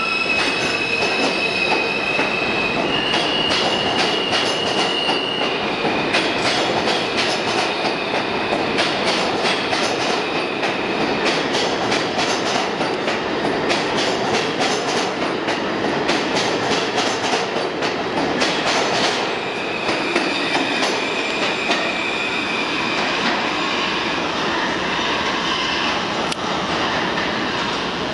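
R160A subway train pulling out of a station and running past. A high whine from the traction motors shifts pitch in steps as the train gains speed, over the rumble and rapid clatter of wheels on the rails. It gets a little fainter in the last seconds as the rear car heads into the tunnel.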